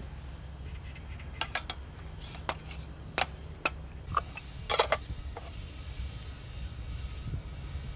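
Sharp plastic clicks and snaps of a food container's clip-lock lid being unfastened by hand, a handful of separate clicks spread over several seconds with the loudest cluster about five seconds in, over a steady low hum.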